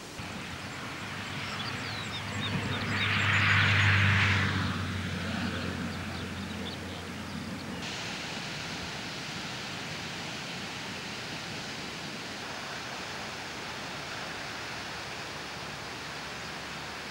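Outdoor field ambience: a steady hiss with faint bird chirps in the first few seconds. A low hum swells and fades about three to four seconds in. The background changes at about eight seconds.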